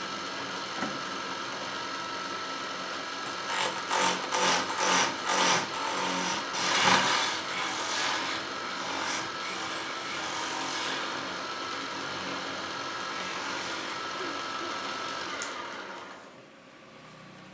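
Motor-driven wood lathe running steadily while a hand-held chisel cuts into the spinning wooden spindle blank: a run of short rasping cuts about four seconds in, then longer, louder cutting until about eleven seconds. Near the end the sound falls off sharply.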